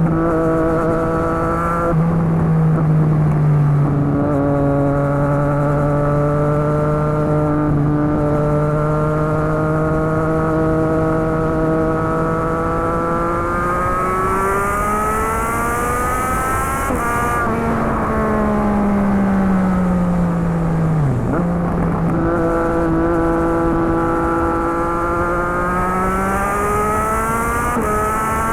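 2020 Triumph Street Triple RS inline-three engine running through a Yoshimura Alpha T exhaust with the dB killer fitted, while being ridden. The note holds steady and steps down in pitch twice in the first few seconds. It climbs in revs through the middle, drops sharply, falls away as the bike slows, then holds and climbs again near the end.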